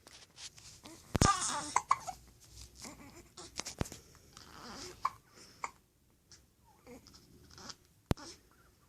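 Baby twins with the hiccups: short, sharp hiccups about one, four and eight seconds in, between soft babbling and small vocal noises.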